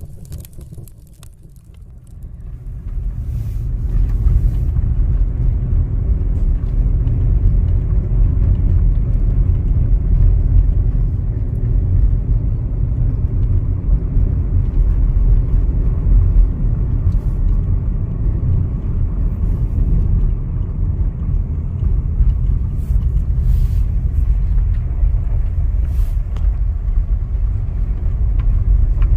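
Steady low road rumble of a car being driven, heard from inside the cabin: tyre and engine noise that comes up about three seconds in and holds, with a few faint ticks.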